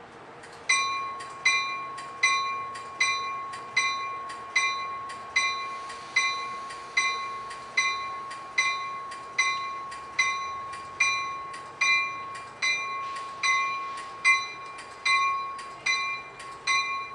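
Railroad warning bell for an approaching train, ringing with a steady stroke of about five strikes every four seconds. Each strike rings on into the next.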